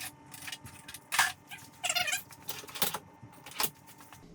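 A cat meows once, briefly, about two seconds in, among a few short bursts of hiss and clicks.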